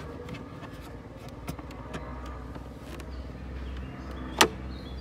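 Mercedes A-Class boot floor panel being lifted by its handle: light plastic clicks and rattles, with one sharp knock near the end, over a low steady rumble.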